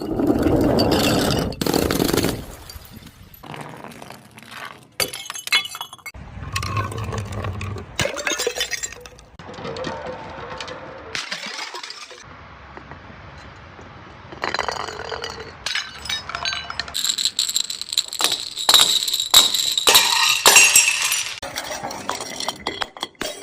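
Glass bottles being smashed one after another, each breaking with a sharp crash followed by shattering and clinking glass pieces. The sounds come in a string of separate short takes with abrupt cuts between them.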